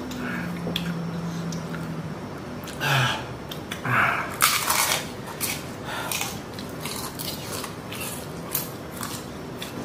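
Two people eating spicy instant noodles with forks. A low hum of a voice comes near the start, then two short breathy puffs, then a run of chewing smacks and fork clicks on plates.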